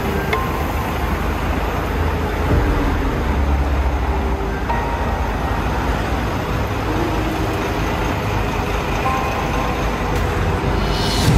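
Street traffic noise: a steady rumble of engines and tyres, heavier and lower for a couple of seconds about two and a half seconds in, with a brief knock near the end.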